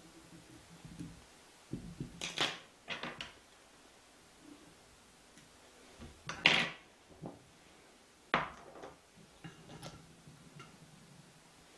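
Fly-tying handling noises at the vise: a few short scraping and clicking sounds from tools and materials being handled, the loudest about six and a half seconds in.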